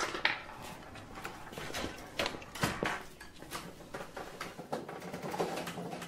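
A green pastel crayon rubbing on paper in short, irregular strokes as an area of a drawing is coloured in.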